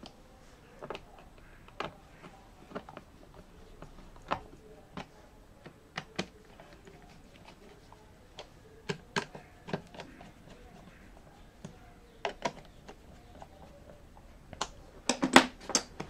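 Screwdriver clicking on the screws of a Lenovo ThinkPad E14 Gen 4's plastic bottom cover as they are tightened: light, scattered clicks every second or so. Near the end, a quick cluster of louder knocks as the laptop is handled.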